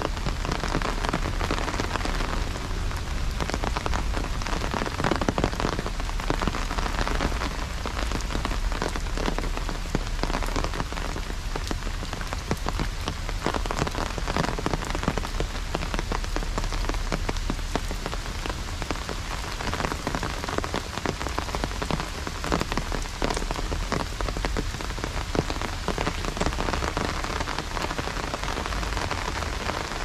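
Heavy rain falling steadily, its drops pattering on an umbrella and on the wet paved path in a dense crackle of individual hits, over a steady low rumble.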